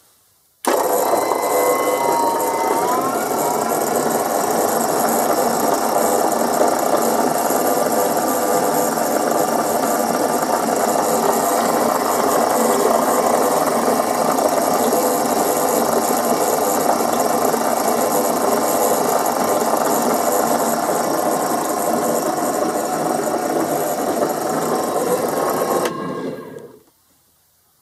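SK Mixer SK-10 tabletop mixer running with its wire whisk spinning in an empty stainless-steel bowl. It starts suddenly about a second in, runs steadily, and near the end is switched off and winds down.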